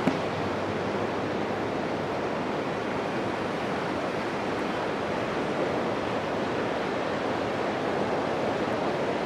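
Steady rushing background noise with no distinct events, and a short click at the very start.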